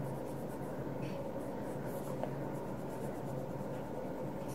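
A stylus dragging in faint, soft strokes across a tablet's glass screen, over a steady low hum.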